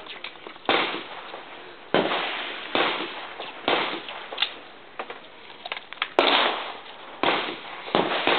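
A string of handgun shots, about seven, spaced unevenly roughly a second apart, each sharp crack trailing off in a short echo.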